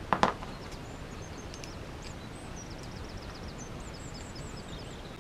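Two quick clicks just after the start as pliers and a small metal shock absorber are handled on the cutting mat, then a bird singing in the background: runs of short, high, repeated chirps and trills.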